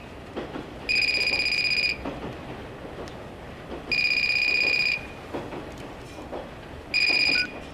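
Electronic phone ringer trilling: three rings about three seconds apart, the third cut short.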